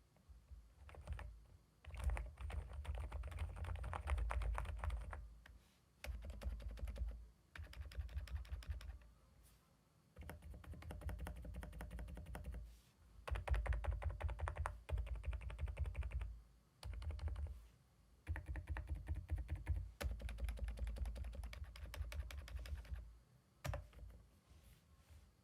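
Typing on a CIDOO ABM066 mechanical keyboard with CIDOO Silent Blue linear switches: fast runs of keystrokes in bursts of one to three seconds, with short pauses between.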